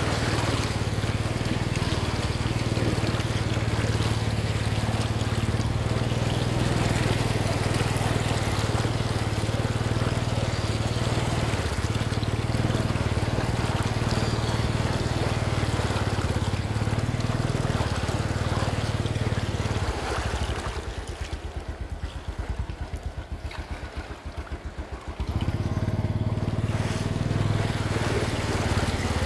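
A 2009 Suzuki Shogun RR moped's engine running steadily as it wades through floodwater about a foot deep, its front wheel throwing up a constant rush of splashing water. About twenty seconds in, the engine and the splashing drop quieter for about five seconds, then pick up again.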